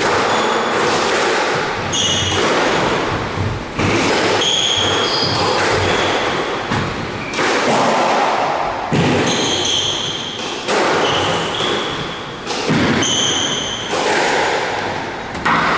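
A squash rally: the ball smacking off rackets and the walls about once a second, ringing round the court, with shoes squeaking in short bursts on the court floor.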